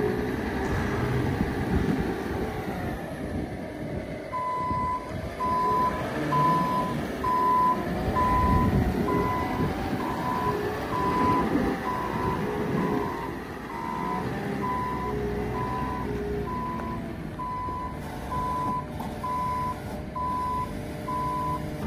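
Cat 926M wheel loader's Cat diesel engine running as the machine drives, with its reverse alarm beeping steadily about once a second from about four seconds in: the loader is backing up.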